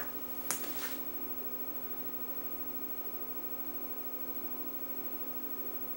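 Steady mains hum over a light hiss, with two short clicks about half a second into the sound.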